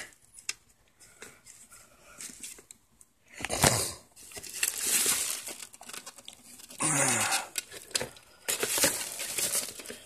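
Plastic packaging and bubble wrap rustling and crinkling in irregular bursts as hands pull a boxed fan out of its wrapping, with bits of tearing.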